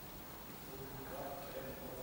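Faint, indistinct murmur of voices from a group of people, over steady room noise.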